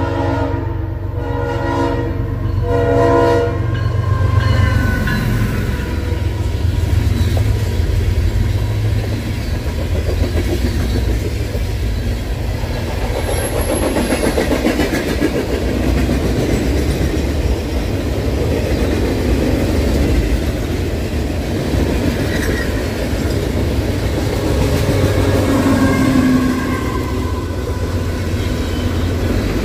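The Leslie S5T five-chime air horn on a CSX ES44AH locomotive sounds its last few broken blasts, ending about three and a half seconds in. Then the locomotive's engine rumbles close by, and a long string of freight cars rolls past, wheels clicking over the rail joints. Near the end a mid-train GE CW44AC distributed-power locomotive goes by.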